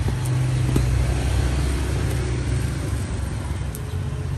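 Street traffic: a motor vehicle's engine running close by as a steady low hum, louder in the first couple of seconds and then easing off, with a few faint clicks.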